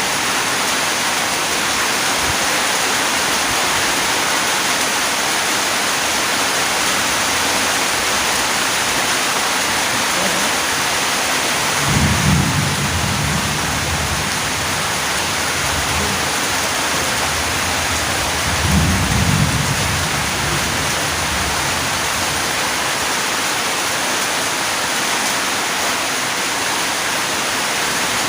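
Steady rain falling, a dense even hiss, with two short low rumbles of thunder, about twelve and nineteen seconds in.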